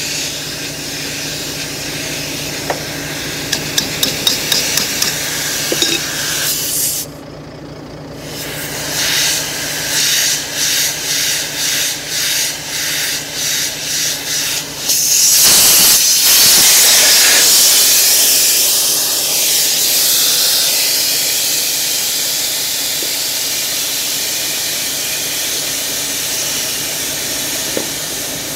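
Compressed air hissing from an air line fed straight to the power divider diaphragm on a Volvo G88 truck, a leak the mechanic expected, with the diesel engine idling underneath. The hiss cuts out for about a second, returns in short pulses about twice a second, then a louder steady hiss starts about halfway through and slowly eases off.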